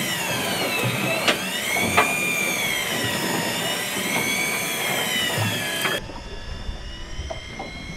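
Electric fishing reel motor winding in line under the heavy load of a big lingcod, a steady whine that wavers up and down in pitch, with a couple of sharp clicks in the first two seconds. The sound turns quieter and duller in the last two seconds.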